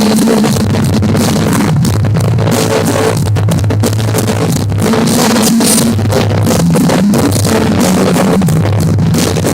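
Loud rock music with a drum kit and guitar, a steady beat under sustained chords.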